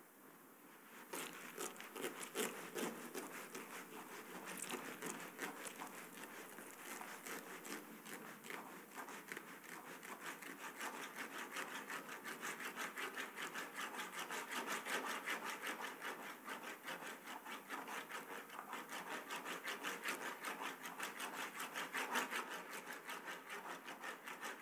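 Steady, rapid scratching: a dense run of small rasping clicks that starts about a second in and keeps going with a loose, pulsing rise and fall.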